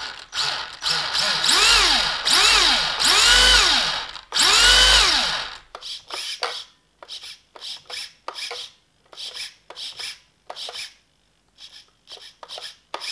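Electric motor of a Losi XXX-S RC touring car, wheels off the ground, revved in several quick throttle blips, each a whine that rises and falls in pitch. Then short buzzing bursts, about two a second, as the steering servo is worked back and forth. The car is being tested for lag in its response through an old Novak receiver.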